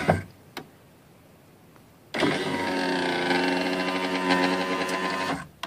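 Car power-window motor and regulator driving the door glass in a steady whining hum, stopping with a thump just after the start; after about two seconds of quiet it runs again for about three and a half seconds and stops with a click. It is the test of a home-made window sash repair, and the glass travels without any clunk from the regulator bar.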